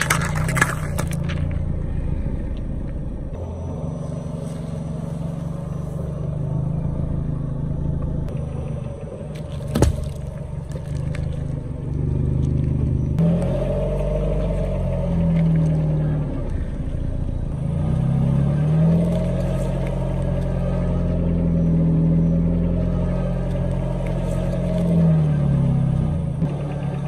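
Car engine running at low speed as the car rolls its tyre over objects, its note rising and falling several times. A crackling crush right at the start and one sharp crack about ten seconds in come from things bursting under the tyre.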